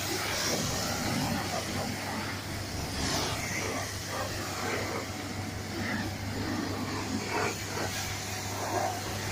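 Self-service car wash running: a steady hiss of high-pressure water spray over a constant low hum, with faint voices now and then.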